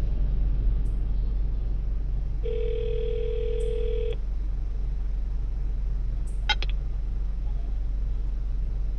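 Gate intercom call box sounding one steady telephone ring tone for under two seconds, starting about two and a half seconds in, as it calls the resident to let the car through the gate. A steady low hum from the car's idling engine runs underneath, with a short click about six and a half seconds in.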